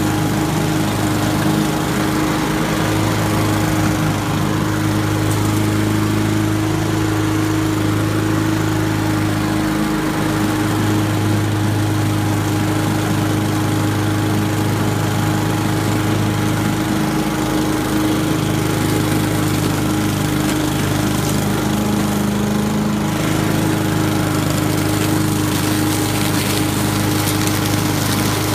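Honda walk-behind lawn mower's four-stroke engine running steadily under load as the mower cuts through grass and fallen leaves.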